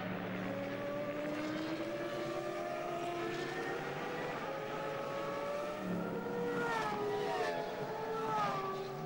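Formula One V10 engines running at reduced pace behind the safety car. Their overlapping engine notes rise slowly at first, then several cars pass close one after another in the last few seconds, each note dropping in pitch as it goes by.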